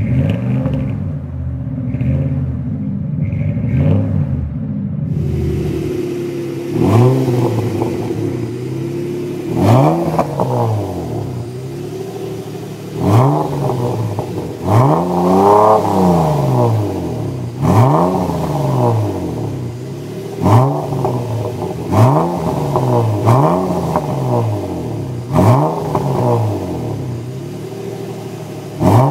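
2002 Dodge Ram 1500's 4.7-litre V8 on a Flowmaster exhaust idling with small swells for the first few seconds. Then the straight-six of a naturally aspirated R34 Nissan Skyline on a 5zigen exhaust, revved in short blips about every two seconds, each a quick rise and fall in pitch, with one longer, higher rev near the middle.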